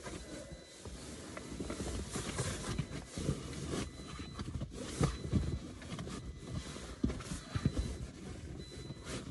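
Rustling and scraping of a faux-leather car seat cover being fitted over a front seat, with a few soft thumps, the loudest about five and seven seconds in.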